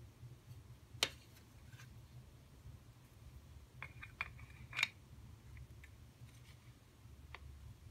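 Hard plastic clicks and taps as a small clear plastic tank is handled on a plastic tray: one sharp click about a second in, then a quick run of small clicks ending in a sharper snap as a red plastic divider is pushed into the tank's slot.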